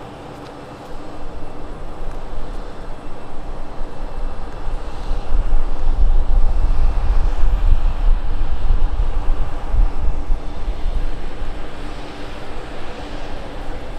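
An airplane's engines rumbling as it comes in on landing approach, growing louder about a second in, loudest in the middle and easing off near the end.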